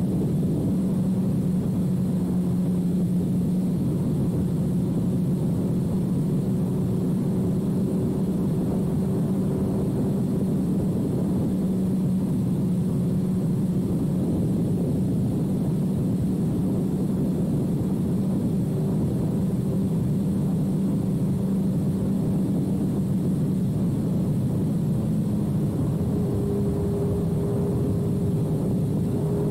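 2006 Suzuki GSX-R1000 inline-four engine running through a full carbon/titanium Yoshimura exhaust, at a steady cruise. The engine note holds steady and rises a little near the end.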